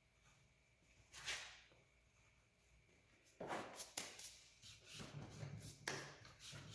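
Faint rustling and brushing as hands wipe drilling dust off the hands and a rifle stock: one short hiss about a second in, then a run of brushing strokes from about three and a half seconds.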